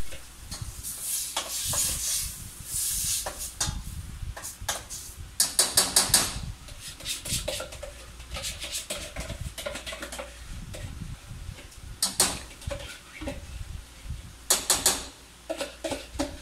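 Metal spoon clinking and scraping against a steel saucepan while food is spooned in and stirred, with several quick runs of taps on the pot, the loudest about six seconds in.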